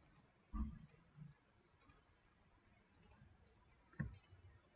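Computer mouse clicking quietly, about five clicks roughly a second apart, with two soft low thumps, one about half a second in and one near the end.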